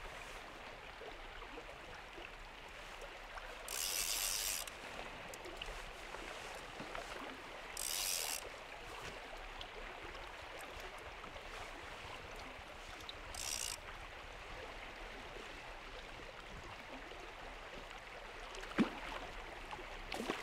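Fishing reel's drag buzzing in three short bursts, about 4, 8 and 13.5 seconds in, as a hooked fish pulls line off, over the steady sound of river water flowing.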